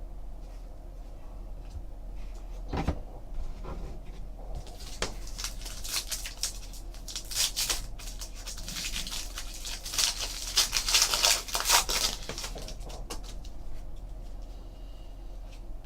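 A trading card pack being torn open: the wrapper crinkles and rips in a run of crackling bursts, loudest past the middle, with cards being handled and a few light clicks before it.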